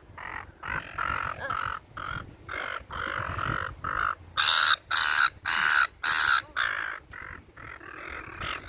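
A flock of gulls squawking over and over in short, harsh calls, with a run of louder calls around the middle.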